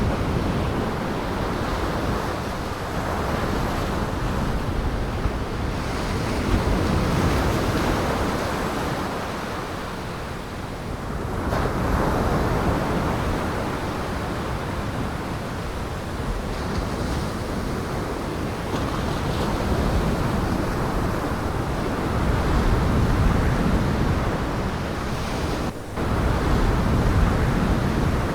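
Storm surf on Lake Michigan, waves breaking in a steady wash that swells and eases every few seconds, with strong wind buffeting the microphone. The sound briefly drops out near the end.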